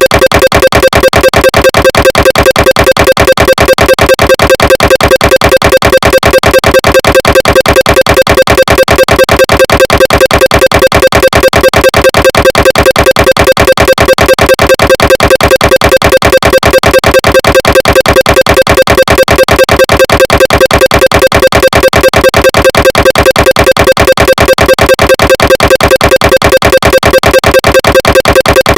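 Recreation of a GE 1.5 T SIGNA Victor MRI scanner's gradient noise during an axial diffusion-weighted (echo-planar) sequence. It is a loud, steady, fast pulsing buzz that holds the same pitch and rhythm throughout.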